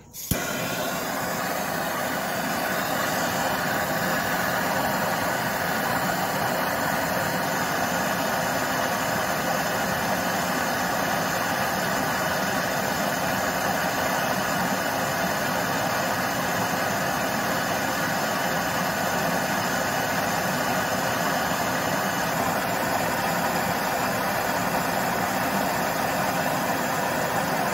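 Bernzomatic MAP-Pro hand torch lit with a click, then burning with a steady hiss as its flame heats a seized exhaust manifold bolt to loosen it.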